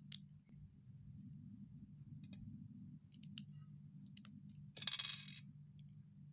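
Small plastic building bricks clicking and tapping as they are handled and pressed together into a toy car. A louder brief rustle comes about five seconds in, over a low steady hum.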